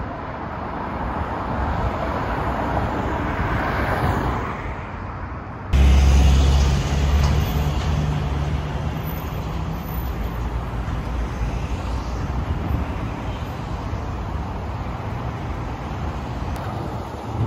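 Street traffic: a car passing by in the first few seconds, then after an abrupt cut, cars idling close by at a traffic light with a low, steady engine hum that fades into general traffic noise.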